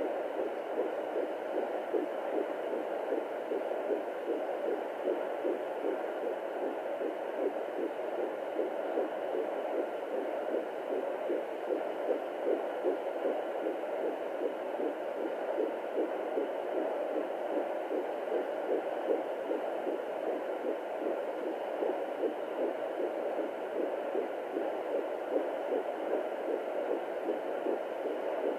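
Fetal heartbeat at 14 weeks of pregnancy heard through a Doppler monitor: a fast, even pulse over a steady hiss.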